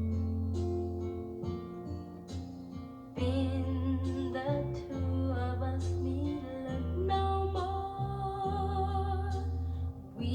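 Dream pop music: plucked guitar over a steady bass, with a singing voice coming in about three seconds in.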